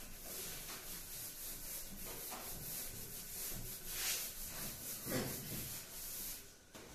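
Cloth wiping chalk off a blackboard, scrubbing in repeated back-and-forth strokes that stop near the end.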